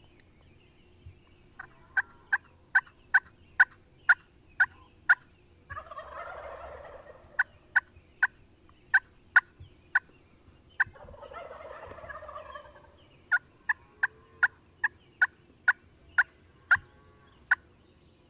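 Wild turkey gobbler gobbling twice, each a rattling gobble of about a second and a half, between runs of short, sharp turkey yelps at about two and a half a second.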